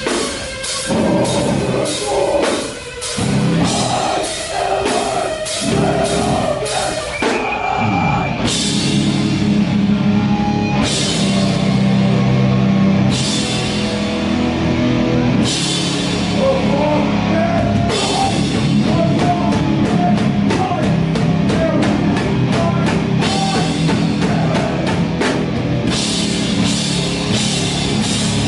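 Live rock band playing loud, with distorted electric guitars and a drum kit. A fast drum beat gives way about seven seconds in to a slower, heavier section with crashing cymbals, and the fast beat comes back about two-thirds of the way through.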